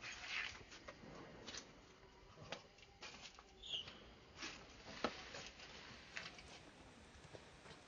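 Monkeys scuffling and scrambling about on concrete: scattered light taps and scuffs of hands and feet, with one brief high squeak about halfway through.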